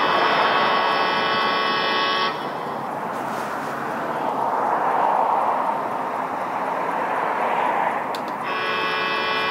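Vehicle noise at a truck stop. A steady buzzing tone with a horn-like ring runs for about two seconds and cuts off. Then a rushing engine-and-tyre noise swells and fades twice, and the steady tone starts again near the end.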